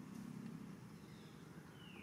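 Faint outdoor background: a low steady hum that eases off early, and near the end a faint thin whistle that falls in pitch.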